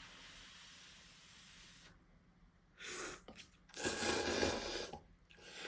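Instant ramen noodles being slurped from a bowl, in two short gulps and one louder, second-long slurp.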